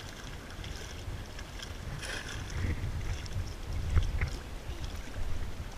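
Water lapping and sloshing against a rock ledge, with wind buffeting the microphone as an uneven low rumble that swells in the middle and a brief splash-like hiss about two seconds in.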